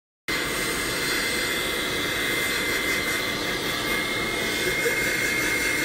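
Handheld hair dryer starting suddenly and then blowing steadily, a loud even rush of air with a steady motor whine.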